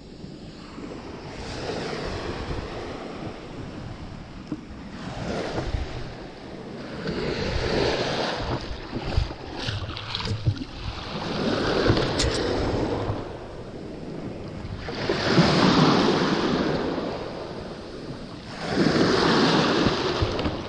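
Small sea waves breaking on a sandy shore and washing up around the feet. The wash swells and fades about every three to four seconds, with wind rumbling on the microphone.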